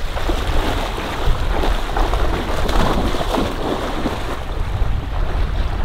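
Dog swimming through marsh water, splashing irregularly as it paddles, with wind rumbling on the microphone.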